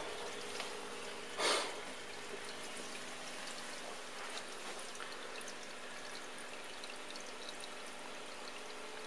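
Aquarium water trickling and splashing steadily, with small drips throughout. There is a short, louder burst of noise about one and a half seconds in.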